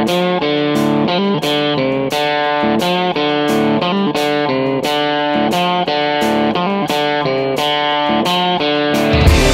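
Intro music: an electric guitar picking a repeating melodic riff in an even rhythm, with a heavier, fuller band sound coming in near the end.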